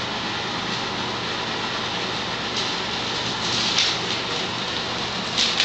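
Steady rushing background noise, with brief rustling bursts about three and a half seconds in and again near the end.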